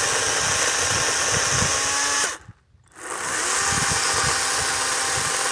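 Kobalt 40V Max battery chainsaw running as it cuts small branches, in two trigger pulls: the motor stops abruptly a little over two seconds in and spins back up about half a second later. The user suspects it is starting to lose power as the 5 amp-hour battery runs down.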